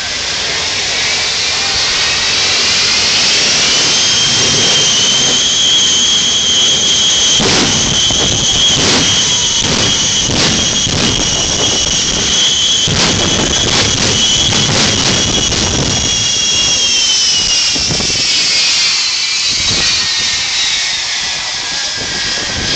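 The Shockwave jet truck's three jet engines spooling up into a loud high whine, holding it for about twelve seconds with a run of sharp pops and bangs in the middle, then winding down near the end.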